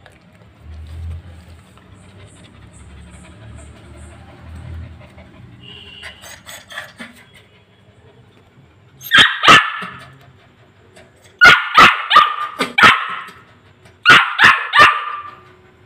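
Yellow Labrador puppy barking: short barks in three bursts, two about nine seconds in, then a run of four or five, then three more near the end.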